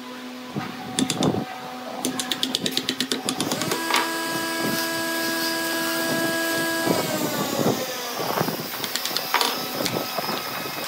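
A chisel prying a white plastic mold board off a cured cast-resin block, with rapid crackling clicks as the board pulls away from the resin, plus scraping and knocks. In the middle a steady pitched whine runs for about three seconds, then slides down in pitch as it stops.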